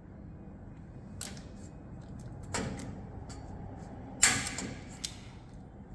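Hand pop rivet gun being worked: a series of sharp metallic clicks and snaps, four in all, the loudest about four seconds in.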